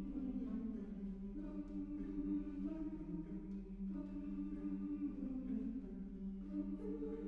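A cappella chamber choir singing slow, sustained chords, the voices holding each chord for about a second before moving together to the next.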